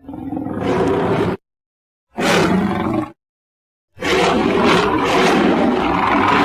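Sharptooth, the Tyrannosaurus of the animated film, roaring as sound-effect clips: three separate roars with dead silence between them. The first two last about a second each, and the third begins about four seconds in and is still going at the end.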